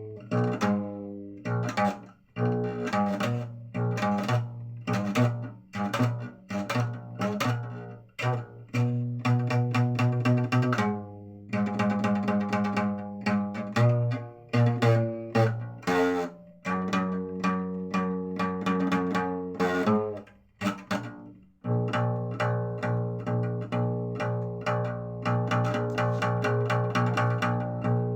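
Instrumental music on string instruments: a run of sharply plucked notes over a low held bass.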